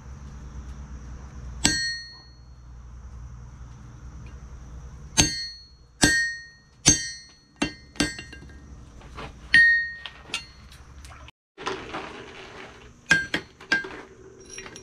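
Blacksmith's hammer striking a steel drift into hot steel at the anvil, each blow ringing, about a dozen blows at uneven spacing. A steady low hum lies behind the blows and cuts off about eleven seconds in, followed by quicker, lighter clinks.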